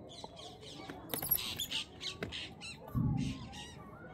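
Rapid high-pitched squeaky chirps, many in quick succession, with a dull low thump about three seconds in.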